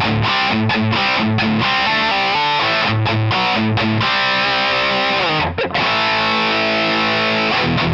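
Telecaster-style electric guitar on its bridge pickup, played through a distorted amp sound: a chugging low riff, then held ringing chords with a brief break just past halfway, and the chugging returns near the end.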